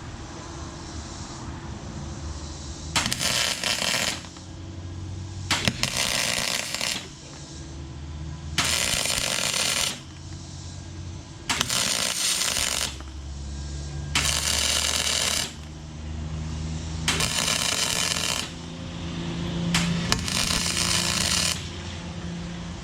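Aluminum wire-feed (MIG) welder laying tack welds: about seven short runs of crackling arc noise, each a second or so long, starting and stopping abruptly, over a steady low hum.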